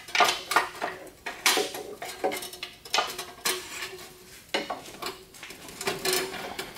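Irregular metallic clinks and knocks of hand tools on the car's underside, some ringing briefly, while the starter is being worked free of the automatic transmission being removed.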